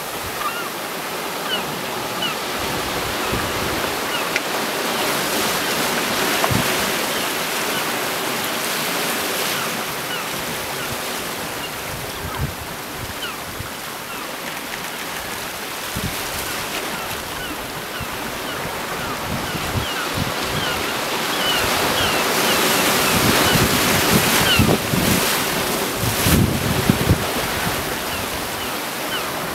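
Sea waves washing and breaking against a rocky shore: a continuous wash that swells louder toward the end.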